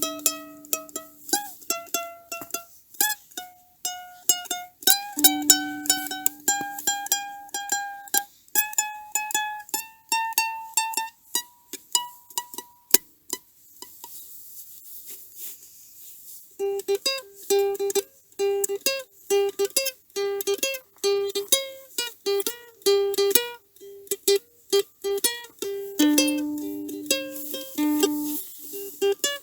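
Instrumental music played live on plucked strings: a picked melody that climbs step by step, dropping away for a few seconds about halfway, then a quick, even picked rhythm comes back.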